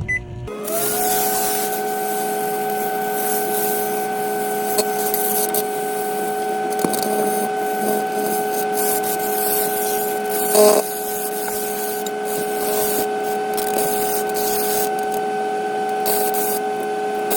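Microwave oven running: a steady hum with a hiss underneath, rising briefly as it starts about half a second in, with a few faint clicks and a louder crackle about ten seconds in.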